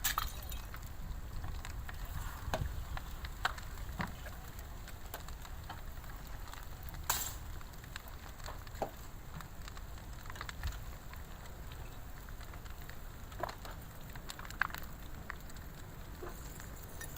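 A tour bus burning, the fire crackling with scattered sharp pops, the loudest about seven seconds in, over a low steady rumble.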